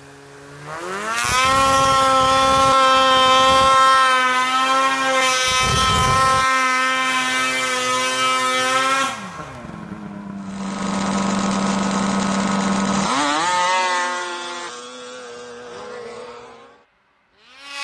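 Snowmobile engines at high revs: one revs up about a second in and holds a steady high pitch for several seconds before dropping. After a cut, another sled's engine runs, revs up again and falls away before cutting off.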